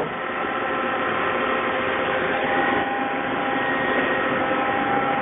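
Steady hum of running machinery in a machine shop: a constant haze with several steady tones held throughout, without strikes or changes.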